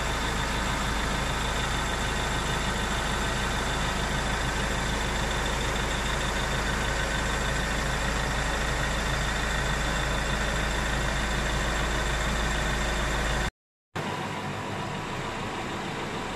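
Iveco Daily 3.0 four-cylinder diesel engine idling steadily with its newly replaced timing chain. The sound cuts out briefly near the end and comes back as a lighter steady running sound.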